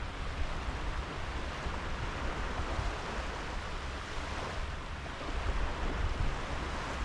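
Small sea waves washing steadily onto a sandy beach, with a low rumble of wind on the microphone underneath.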